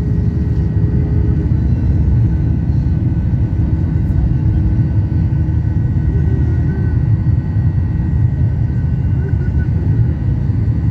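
Jet airliner's turbofan engines at takeoff thrust, a loud steady rumble heard from inside the passenger cabin as the plane lifts off the runway and climbs out.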